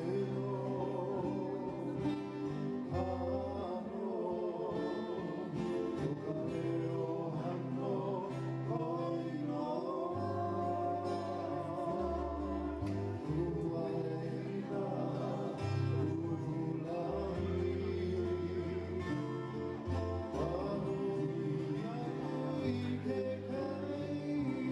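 Soundtrack music: a song with singing voices over strummed guitar and a steady bass line.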